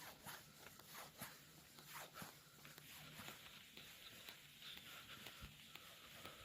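Near silence: a faint hiss with soft scattered ticks and rustles.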